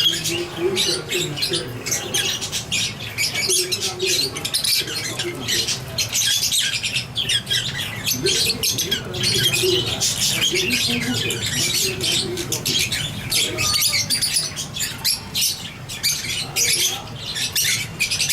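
Lovebirds chattering: a continuous stream of rapid, high-pitched chirps and squeaky squawks, the sounds a pair makes while mating.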